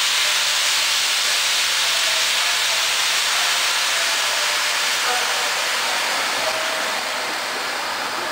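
Loud, steady hiss of compressed air venting from the train's pneumatic (air brake) system, fading slowly.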